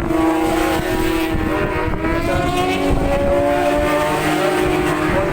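Several racing superbikes' engines running hard at once, their pitches gliding up and down as they pass, over low wind buffeting on the microphone.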